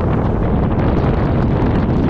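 Wind buffeting the camera's microphone: a loud, steady rumble with no let-up.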